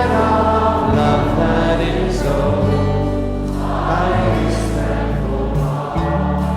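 Choral church music: held, sustained chords over a steady bass, changing every second or so.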